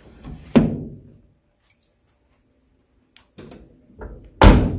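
A 1972 Chevy Nova's door shutting. There are two heavy thunks, one about half a second in and a louder one near the end, with a few light clicks just before the second.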